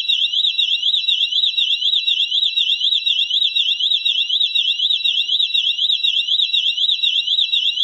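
Synthesized electronic alarm siren: a high tone warbling rapidly and evenly up and down without a break.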